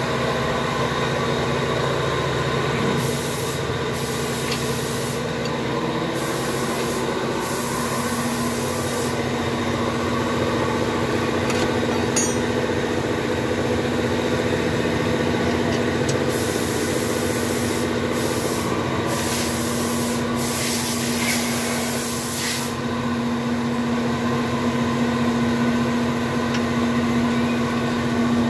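Toyota 1AZ four-cylinder engine idling steadily, with a strong low steady tone, joined several times by a short high hiss that switches on and off.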